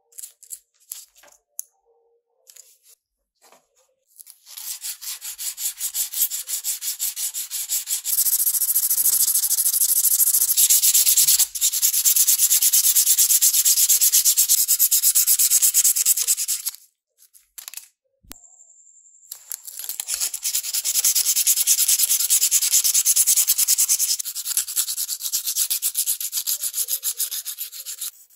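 Silicon carbide sandpaper rubbed rapidly back and forth by hand over the bare metal body of a scale-model car, a fast steady scratching. It starts about four seconds in after a few small clicks, stops for a couple of seconds past the middle, then resumes.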